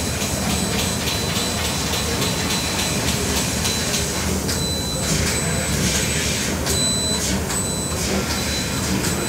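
CNC laser cutting machine cutting sheet steel: a steady hiss and whir from the moving cutting head, with a fast run of faint high ticks. Three short high beeps sound in the second half.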